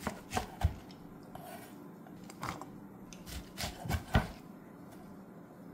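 Chef's knife cutting through blanched sweet potato stems on a wooden cutting board, each stroke a short knock of the blade on the board. About three cuts come in the first second, one near the middle, and a quicker run of four around four seconds in.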